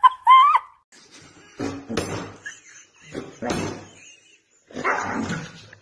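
A Siberian husky making rough, drawn-out vocal grumbles at another husky, three of them about a second apart, after a short high-pitched cry at the start.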